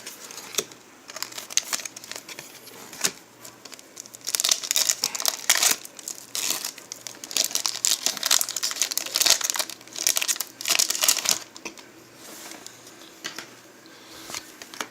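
Foil wrapper of a Pokémon booster pack crinkling and tearing as it is opened, in bursts of crackling that are busiest through the middle and die down near the end.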